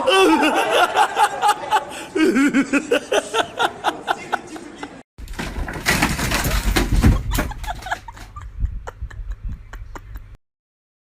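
A person laughing in quick repeated bursts. About five seconds in it cuts to a noisy stretch with a low hum and a few knocks, which stops dead about a second before the end.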